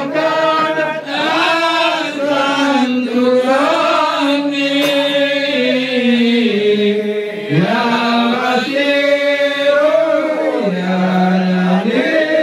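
A group of voices chanting a slow, melodic recitation in unison, with long held notes that step up and down in pitch.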